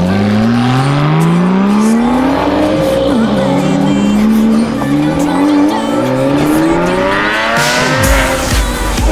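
Porsche 911 flat-six engines accelerating away one car after another. The pitch rises through the revs, falls back about two and a half seconds in, then climbs again, with a steep hard-revving pull near the end.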